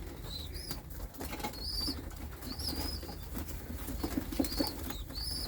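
A group of white doves moving about in a cage, wings flapping and rustling as they crowd in together, with short high chirps repeating throughout.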